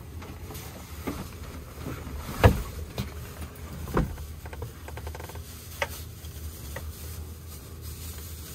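Scattered knocks and thumps of a person climbing down into a small boat's wooden cabin and moving about in it, the loudest about two and a half seconds in, over a steady low rumble.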